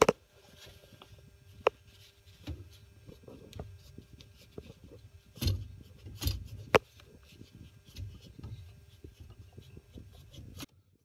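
Hands working at an old gas cock with a cloth: rubbing and rustling against the valve and pipework, with several sharp clicks and knocks, the loudest at the start and a few around the middle.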